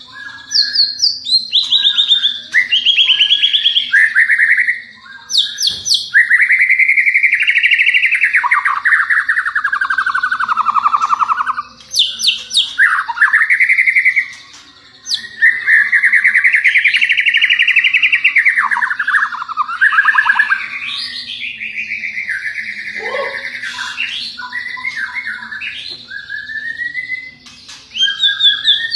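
White-rumped shama (murai batu) singing a long, varied song of rapidly trilled whistled phrases that sweep up and down in pitch, with short breaks about five, twelve and fifteen seconds in. A faint steady low hum runs underneath.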